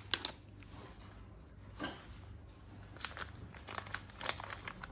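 Faint crinkling and rustling of jewellery packaging being handled, in a few short crackly bursts.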